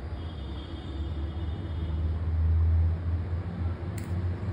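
Low background rumble, swelling louder two to three seconds in, with a faint high whine during the first two seconds and a sharp click near the end.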